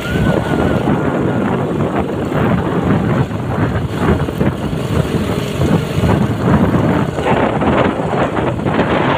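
Riding noise on a very bumpy road: steady wind and road rumble on the microphone, broken by frequent short jolts and rattles.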